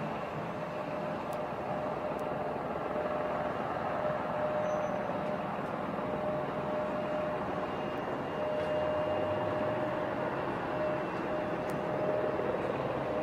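Boeing 777X's GE9X turbofan engines running at taxi power: a steady roar with a high, even whine, slowly getting louder as the jet approaches.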